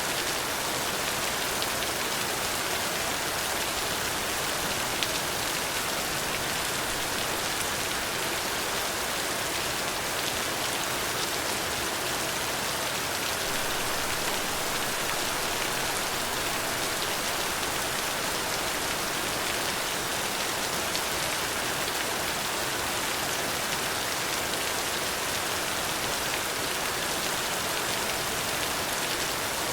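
Steady rain falling on a surface, an even hiss with faint patter of drops.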